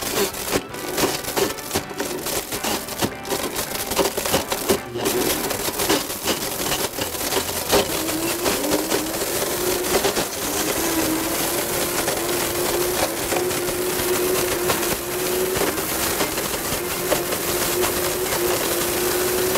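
Blendtec Total Blender running at top speed and smashing an Xbox 360 Kinect sensor. For the first several seconds hard plastic clatters and cracks against the blades and jar. About eight seconds in it settles into a steady whir with a held hum as the pieces are ground to dust.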